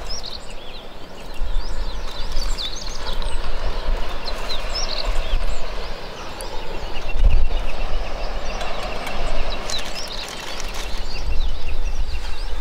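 Many birds chirping and calling in quick short notes over a steady background of outdoor noise, with a low rumble of wind on the microphone.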